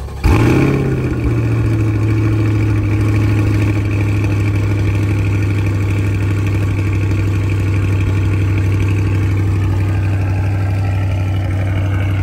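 2023 Chevrolet Corvette C8's 6.2-litre LT2 V8 on its stock exhaust, cold-started: it fires about a quarter second in with a brief rev flare, then settles into a steady cold idle.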